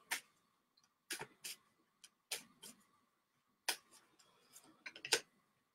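Tarot cards being handled while one is drawn from the deck: faint, scattered clicks and taps, about ten in all, at irregular intervals.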